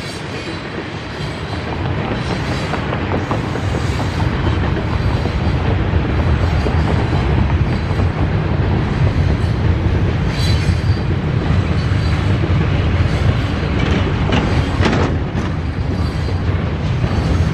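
Freight train of tank cars rolling past: a steady rumble of steel wheels on rail that grows louder over the first couple of seconds, with brief higher squeals about ten and fifteen seconds in.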